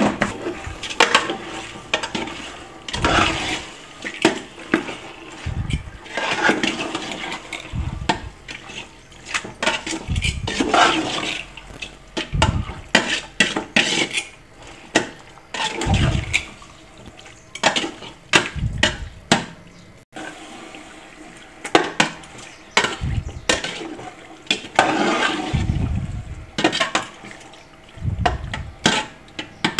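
A steel spoon stirring chicken through thick, wet masala in an aluminium pot, mixing in the salt: irregular squelching, sloshing strokes with sharp clinks and scrapes of the spoon against the pot.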